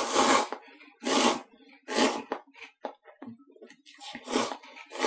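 Instant cup noodles slurped up through chopsticks: a run of short, sharp slurps about a second apart, with a break about three seconds in.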